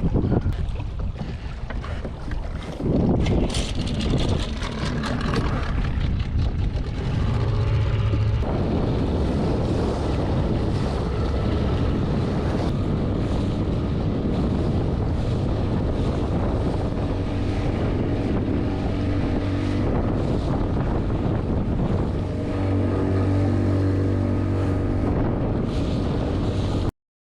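Small outboard motor on a boat running at a steady speed, with wind buffeting the microphone. For the first several seconds, wind gusts and a few knocks are louder before the motor's steady note takes over. The motor gets a little louder about 22 seconds in, and the sound cuts off suddenly just before the end.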